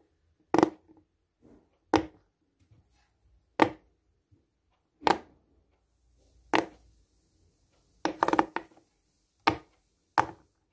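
Silicone pop-it fidget toy's bubbles being pressed through one at a time, each giving a short pop, about one every second and a half, with a quick cluster of pops about eight seconds in.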